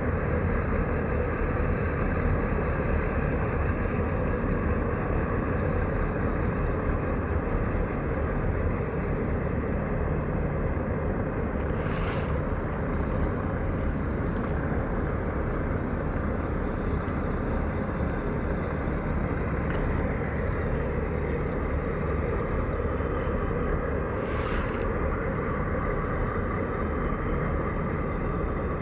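Steady low rumble and hum of the container ship CMA CGM Osiris's engines and machinery as it passes close by. Two brief hissing sounds come about twelve seconds in and again near the end.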